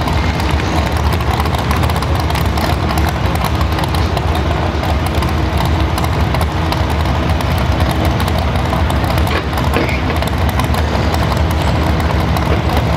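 Modified 4x4 pulling truck's engine idling loudly and steadily, the truck stopped at the end of its pull and still hooked to the sled.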